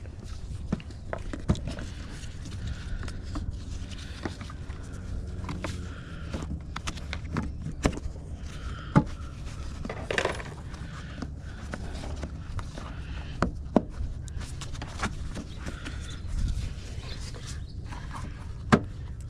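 Scattered sharp clicks, clinks and knocks of hard objects being handled, two of them louder, about nine seconds in and near the end, with a short scrape about ten seconds in, over a steady low rumble.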